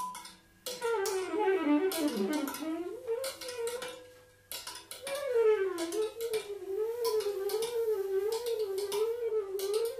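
Free-improvised duo music: a woodwind plays a sliding, wavering line that breaks off for about a second near the middle, then comes back as a slow, even rise and fall in pitch. Scattered sharp percussive taps sound throughout.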